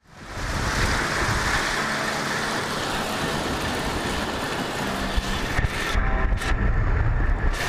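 Wind rushing over the microphone of a bike-mounted camera, with low buffeting that gets heavier near the end, mixed with small waves washing onto the beach.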